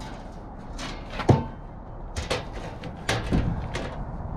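Thin aluminum sheet metal knocking and clanking as it is lifted and set against an RV's basement storage box, with the loudest knock a little over a second in.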